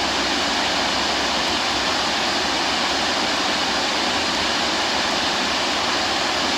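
Steady rush of falling water from a waterfall, an even hiss without pauses or changes.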